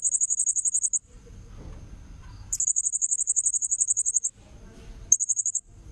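Blue-crowned hanging parrot (serindit) lure call: three bursts of rapid, shrill, high-pitched chirping, the first about a second long, the second nearly two seconds, and a short one near the end, over a steady thin high whine.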